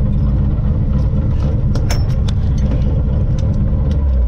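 BMW rally car's engine running loud at a steady pitch, heard from inside the stripped, roll-caged cabin, with scattered ticks and knocks and one sharp click about two seconds in.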